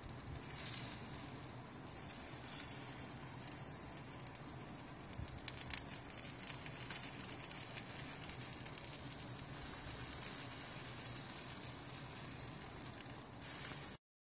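Bacon-wrapped rabbit sizzling on a rotisserie over lump charcoal in a kamado grill: fat and glaze dripping onto the hot coals make a steady hiss with light crackles. It cuts off suddenly near the end.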